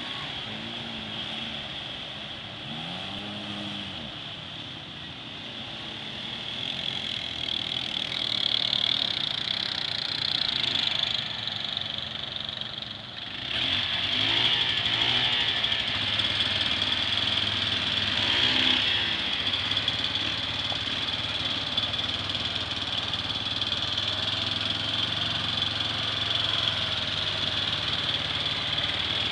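ATV and side-by-side engines running and revving as the machines drive through deep mud and water, with the pitch rising and falling a few times. The sound grows louder from about halfway through.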